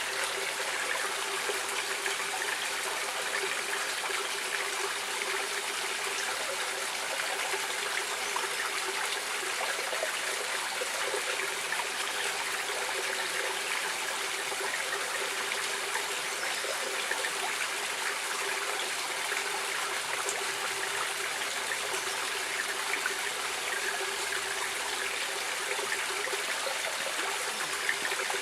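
Stream water flowing steadily, a continuous rush with trickling.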